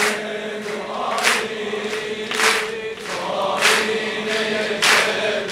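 A large crowd clapping together in a slow, even beat, about one clap every second and a bit, over crowd voices chanting a held note.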